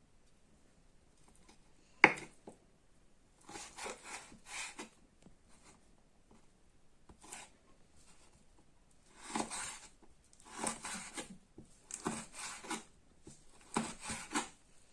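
Knife cutting beef fat into small pieces on a cutting board: irregular runs of short slicing strokes, with one sharp knock of the blade on the board about two seconds in.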